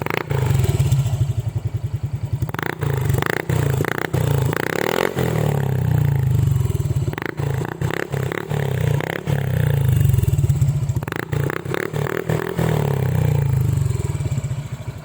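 Honda Click 125i scooter's single-cylinder four-stroke engine running through a Podium Racing aftermarket power pipe exhaust, revved in a series of throttle blips that rise from idle and drop back several times.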